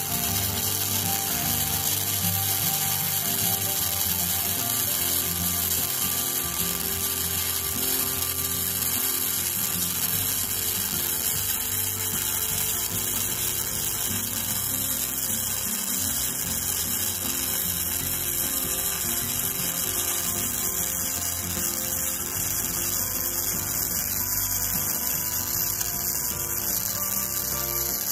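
Gasless flux-core MIG welder (KOBE MIG 235K) arc running without a break, a steady sizzling as a bead is laid along a steel flat bar.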